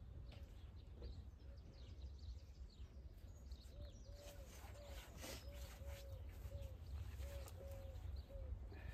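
Birds calling, with one bird repeating a short, low note about ten times in the second half, over a steady low rumble.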